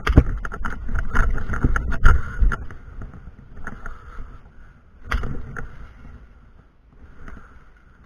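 Irregular clicks and knocks over a low rumble of wind and movement on the camera microphone as the player shifts around a building corner, busiest in the first couple of seconds, with another burst about five seconds in.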